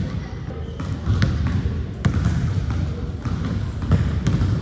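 Basketball bouncing on a gym court, with a few sharp bounces standing out over a steady low rumble of the gym.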